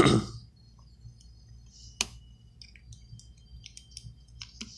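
Small clicks and ticks from handling an opened iPhone 6 Plus and its parts during a screen repair: one sharp click about two seconds in, then a scatter of light ticks.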